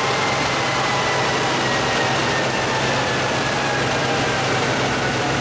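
Maserati GranSport Trofeo race car and chassis dynamometer rollers spinning down under the dyno's brake after a power run: a thin whine falling slowly in pitch over steady loud mechanical noise.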